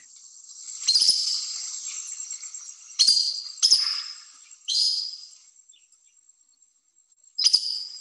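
Collared aracari calling: five sharp, high-pitched squeaky calls spaced a second or more apart.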